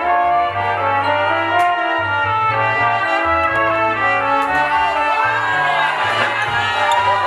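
Battle music from the DJ: a funk-style track with brass horns over a bass line.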